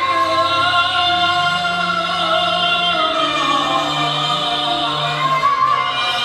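Cantonese opera song music: a long, held, ornamented melodic line over accompaniment, with a bass line moving in slow steps.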